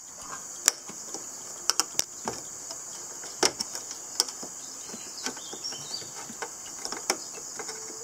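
Sharp irregular clicks and knocks of a flat screwdriver prying the plastic bezel ring off an espresso machine's pressure gauge on its stainless steel front panel. A steady high insect trill, like crickets, runs underneath.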